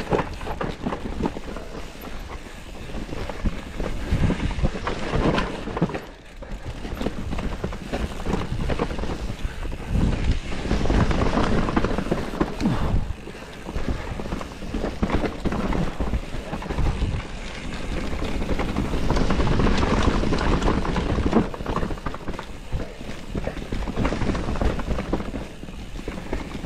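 Mountain bike riding down a dirt forest trail: tyre noise on the soil with frequent knocks and rattles from the bike over bumps, together with wind noise on the microphone. The level rises and falls with speed, dipping briefly about six seconds in.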